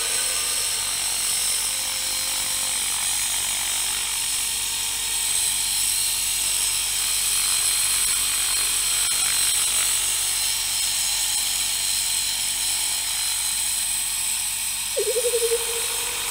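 700-size RC helicopter hovering, its motor and rotor blades giving a steady high-pitched whine. A short pulsing tone sounds about a second before the end.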